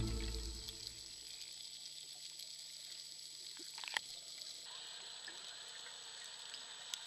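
Background music fading out in the first second, then faint underwater ambience picked up by a camera in its housing: a steady hiss with a few sharp clicks about four seconds in and once more just before the end.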